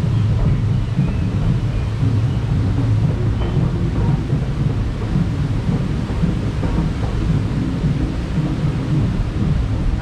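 River-rapids raft being hauled up the ride's lift conveyor, a steady low rumble of the lift mechanism under the raft.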